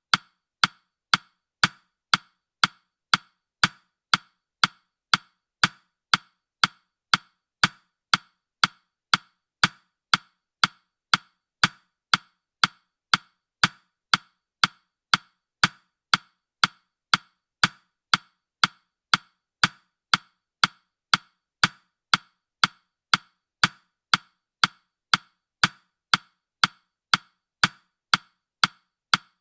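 Countdown timer's ticking sound effect: evenly spaced sharp ticks, about two a second, each dying away quickly.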